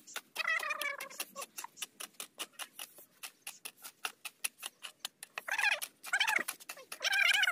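Several short, falling meow-like animal calls, about four, over a fast, even clicking of about seven clicks a second.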